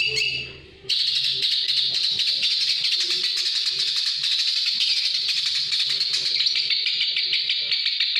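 Bird's continuous rapid, rasping chatter, a dense buzzy trill that starts about a second in after a brief pause.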